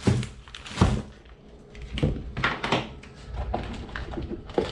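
Handling noise of packaged parts: clear plastic bags rustling and several light knocks as items are lifted and set down in a cardboard box, the loudest knock about a second in.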